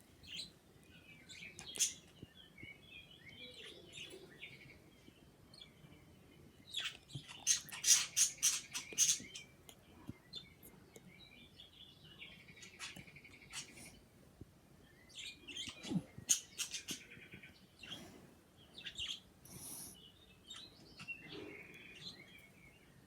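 Two pet birds chirping on and off, with runs of quick smacking clicks like kissing sounds, the loudest about seven seconds in and again around sixteen seconds.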